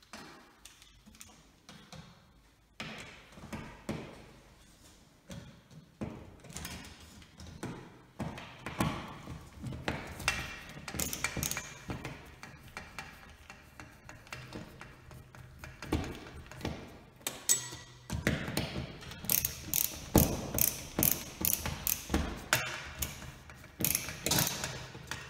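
Hand screwdriver turning screws while a smoke alarm's mounting plate is fixed to the ceiling: irregular clicking and scraping strokes, coming faster and louder in the last several seconds.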